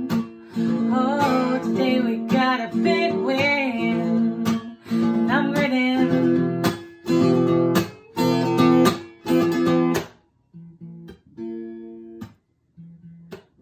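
Acoustic guitar strumming chords while a woman sings a wavering melody over the first few seconds. The voice then stops and the guitar strums on alone, thinning to a few quiet chords near the end.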